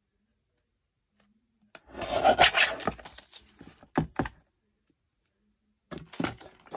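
Fiskars sliding paper trimmer's blade carriage pushed along its rail, cutting through a book page: a rasping slide about a second long, about two seconds in. Then two sharp knocks as the trimmer is lifted, and more knocks and rustling near the end.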